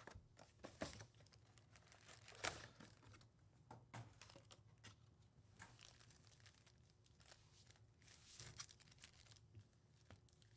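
Faint crinkling and rustling of a cardboard hobby box and its foil-wrapped trading card packs being handled, with a few light clicks and taps.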